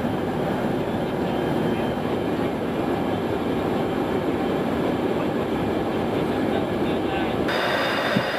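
Steady engine and airflow rumble inside an AWACS aircraft cabin in flight. Near the end the sound changes suddenly and a thin high steady tone appears.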